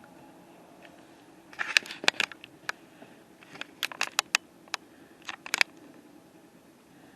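A cluster of sharp clicks and crackles close to the microphone, about a dozen over some four seconds, starting about a second and a half in, over a faint steady low hum.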